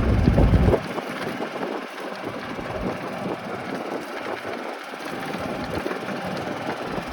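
A car driving, its steady road and engine noise heard from the cabin. A loud low rumble fills the first second and then cuts off suddenly.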